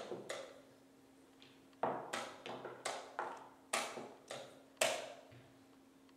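Wooden chess pieces being set down on a wooden board, with presses of the chess clock's buttons, in fast blitz play: a quick run of sharp knocks and clacks, about ten in three seconds, after a couple at the start.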